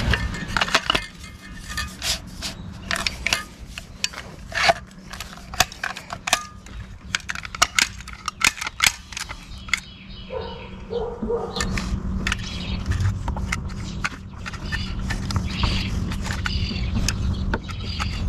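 Manual caulking gun being handled and loaded with a silicone tube: a run of sharp plastic-and-metal clicks and clacks, then scattered ticks as the trigger is squeezed. A steady low rumble rises in the background after about eleven seconds.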